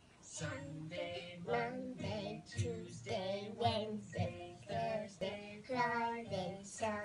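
A children's song: a high child's voice singing one syllable after another over backing music.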